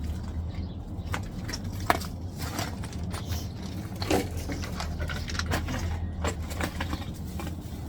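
Twigs and small cut branches crackling and snapping as they are handled, a quick run of irregular sharp clicks with one louder snap about two seconds in, over a steady low hum.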